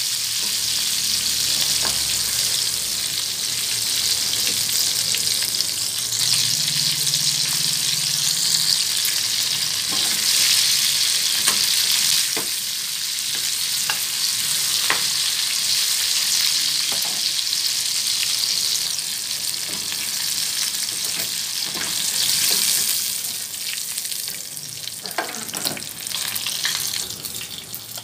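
Marinated chicken 65 pieces deep-frying in hot oil in a small pan: a steady sizzle, with scattered sharp clicks of a metal slotted spoon against the pan as the pieces are turned and lifted out. The sizzle dies down near the end.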